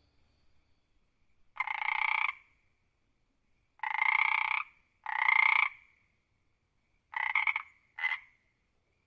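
Frog croaking: five separate calls, the first three each just under a second long, the last two shorter and close together near the end, with quiet gaps between.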